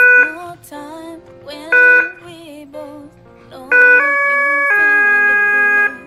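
Loud electronic beeps from the alarm's siren unit as its power plug goes in: one short beep at the start, another about two seconds in, then a longer chime that steps through three notes in the second half. Background music with singing plays under it.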